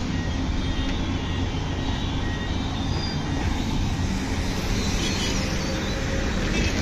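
Steady rumble of road traffic passing on a busy road, with no distinct single events.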